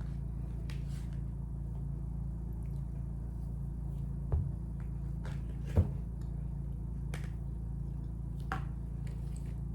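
Quiet tasting: a few soft isolated clicks and taps, about five, from a cookie being handled and bitten, over a steady low hum.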